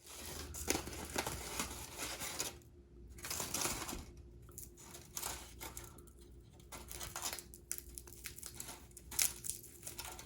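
Irregular crinkling and rustling of something crumpled and torn by hand, in quick bursts with brief pauses. A faint steady hum lies underneath.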